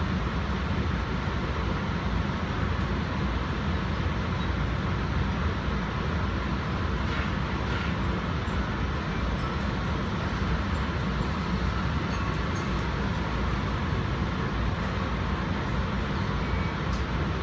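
Steady rumble and rail noise of an NJ Transit commuter train running, heard from on board, with a few faint ticks.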